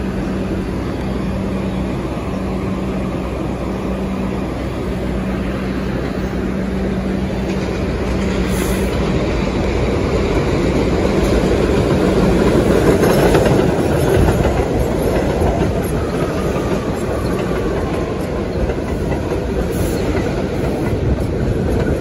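Two New York City subway trains of R62 and R62A cars running on an elevated line. A steady motor hum fades out over the first half, while a second train pulls in alongside with wheels clattering over the rail joints, loudest a little past the middle.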